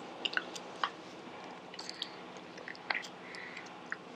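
Faint mouth and handling sounds of sipping black currant fruit tea through a straw from a juice box: scattered small clicks and a short soft hiss a little over three seconds in.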